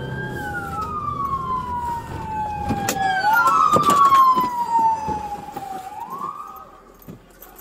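Two police car sirens wailing, each slowly rising and falling in pitch and overlapping, loudest about halfway through and fading out near the end. A few sharp knocks sound over them midway.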